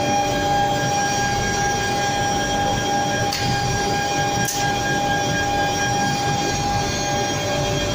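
IMA Compact S-312 automatic edgebander running, its trimming-unit electric motors giving a steady whine at an unchanging pitch over a mechanical rumble. Two short clicks come about three and a half and four and a half seconds in.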